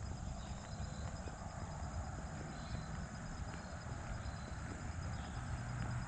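Outdoor park ambience: a steady, high insect trill, with a few short bird chirps over a low, steady rumble.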